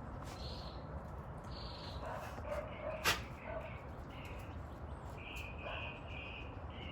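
A dog whining faintly, with a single sharp click about three seconds in.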